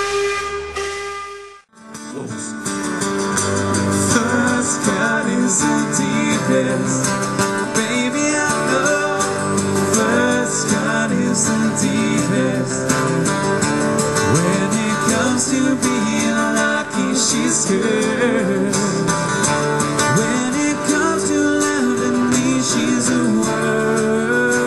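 A steam boat's whistle sounds for about the first second and a half and then cuts off abruptly. After that comes a live acoustic duo: two acoustic guitars strumming and picking under a male singing voice.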